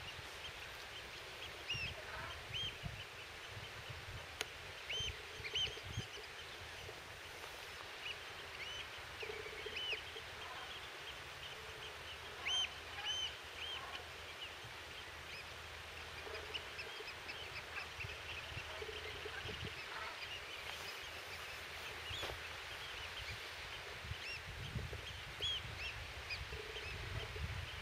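Birds calling: many short, high calls repeated at irregular intervals, with some lower calls now and then, over a steady hiss.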